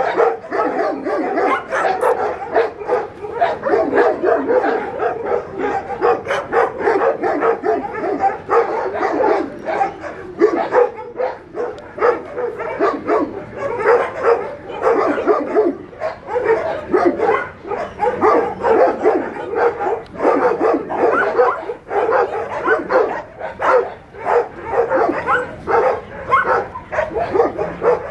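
Several dogs barking and yipping without pause, the short calls overlapping one another.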